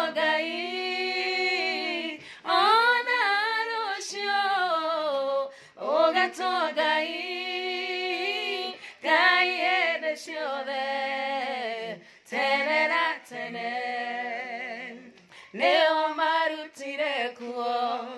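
Two women singing together unaccompanied, in long drawn-out phrases broken by short pauses for breath.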